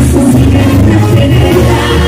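Mexican brass banda playing a cumbia live and loud: a sousaphone bass line under trombones and drums.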